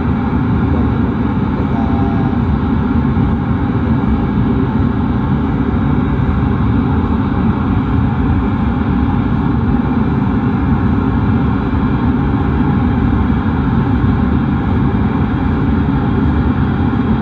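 Pink noise played through a single 15-inch CBS Fusion subwoofer box driven with no crossover: a loud, steady rushing rumble, heaviest in the bass. With no low-pass filter, the box's mid-lows and mids leak through as well.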